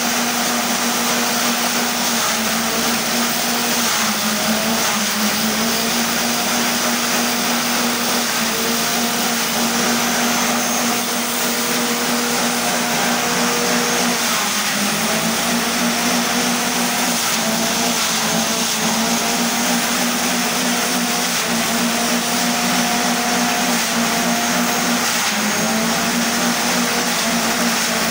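Small gasoline engine driving a forage chopper at speed while its blades shred dry stalks fed into it, a steady hum over a dense hiss. The engine's pitch sags briefly now and then as bundles go in and load it.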